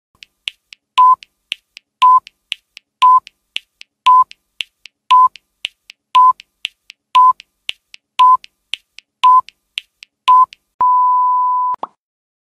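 Countdown timer sound effect: ten short electronic beeps at the same pitch, one a second, with quick faint high ticks between them. They are followed by a long beep of about a second that marks time up.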